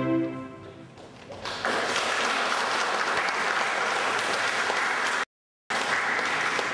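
The piece's final held chord fades out, then an audience applauds steadily from about a second and a half in. The recording drops out for a moment near the end before the applause picks up again.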